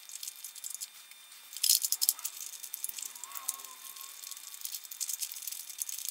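Plastic caps and plugs rattling and clicking against each other as a gloved hand rummages through a metal drawer full of them, loudest about two seconds in.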